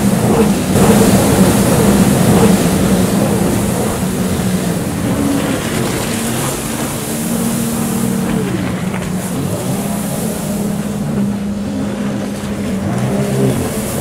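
Racing jet ski engines running hard in a steady drone over a hiss, loudest in the first couple of seconds. Their pitch dips and climbs a few times in the second half as the craft swing through turns.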